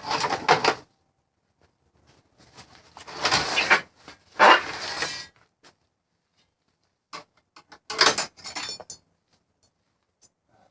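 Clattering and scraping of metal parts being handled and pulled apart while an air conditioner is stripped, in three bursts with quiet gaps between them.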